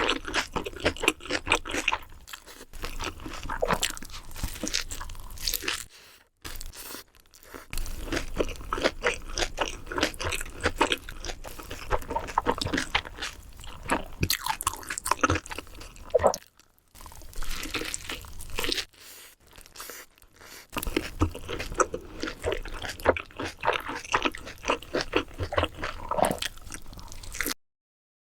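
A person biting and chewing crunchy food close to the microphone: dense, rapid crunching and crackling, broken by a few short pauses. It cuts off suddenly near the end.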